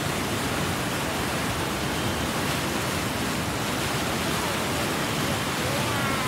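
Fast-flowing river water rushing: a steady, even hiss with no breaks.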